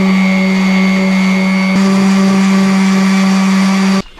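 Handheld electric orbital sander running at a steady pitch against the car's wheel arch. It cuts off suddenly near the end.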